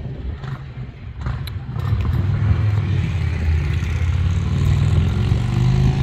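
Low rumble of a motor vehicle engine, growing louder about two seconds in and holding steady.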